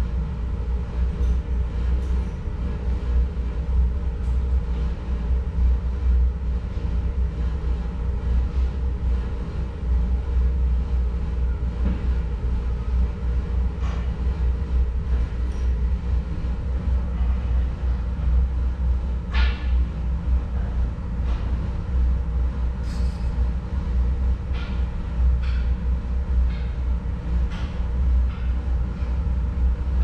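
A STOTEK electric pre-heater furnace running while it heats toward its set point: a steady low rumble with a faint hum in it, and scattered light ticks and clicks.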